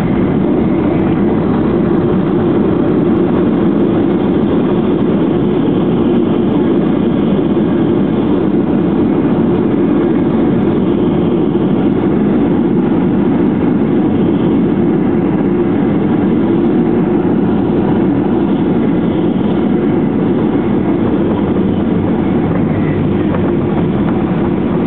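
Cabin noise inside a Boeing 737-800 rolling out on the runway after touchdown: a steady, loud rumble of its CFM56-7B jet engines and its wheels on the runway.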